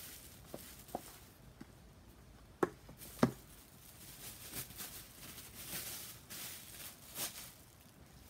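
Bubble wrap and packaging rustling and crinkling as a small box is unwrapped, with scattered light clicks and two sharper taps about two and a half and three seconds in.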